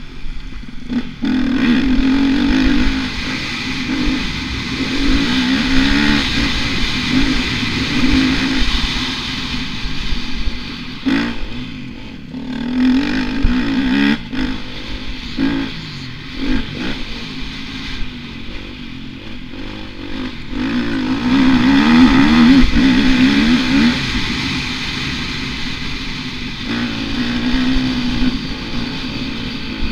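Motocross bike engine ridden hard, its pitch climbing under throttle and dropping off again and again with the gear changes and corners. A few sharp knocks come about halfway through, and the loudest, longest rev is near the end.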